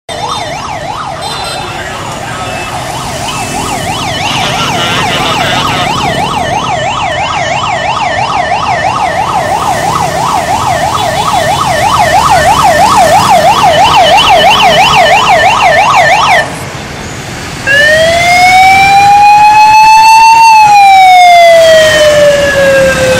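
A loud siren sounds a fast up-and-down yelp. About 17 seconds in it breaks off briefly and switches to a slow wail that rises for about three seconds and then falls away.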